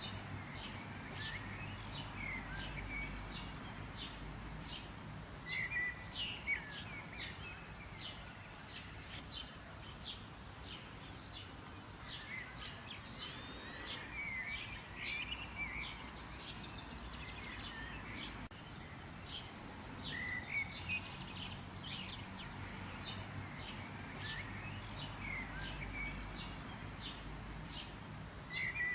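Songbirds chirping and singing, with many quick high chirps and short trills throughout, over a steady low background rumble.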